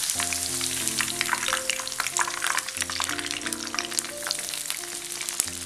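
Marinated chicken strips deep-frying in hot sunflower oil: a dense, steady crackling sizzle. Soft background music with held notes plays underneath.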